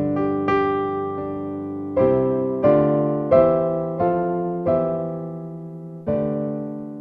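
Background music: a soft electric piano playing slow chords, each struck and left to fade.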